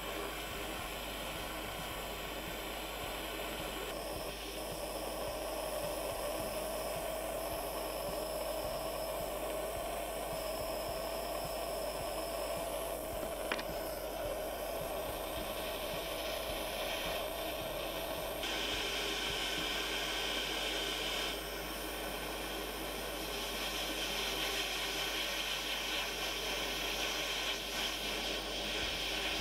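Handheld gas torch flame hissing steadily while it heats a silver piece to solder a silver strip onto it. A steady tone joins the hiss for a stretch in the middle.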